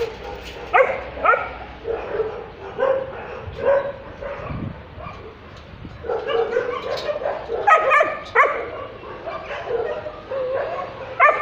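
Shelter dogs barking and yipping over and over, short sharp barks coming every half second or so, busiest in the second half, with some whining mixed in.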